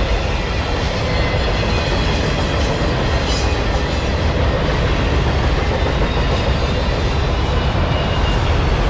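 CSX autorack freight train rolling past, with a steady, loud noise of steel wheels running on the rails.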